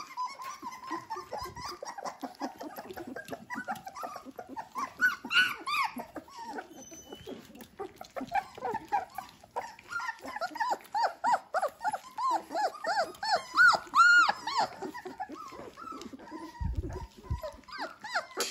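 Dalmatian puppies about three weeks old whining and squeaking in many short, high, rising-and-falling calls while they eat, with small wet clicks of eating in between; the calls are loudest about fourteen seconds in.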